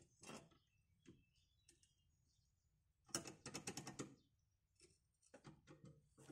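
Faint clicking and rattling from a small hydraulic trolley jack as its handle is worked to raise it under the car, with a quick run of clicks about three seconds in.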